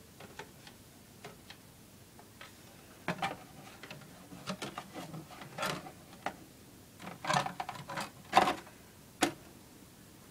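Handling noise: scattered clicks, taps and knocks. A few come early, then they bunch up about three seconds in and again between seven and nine seconds, with the loudest knock a little past eight seconds.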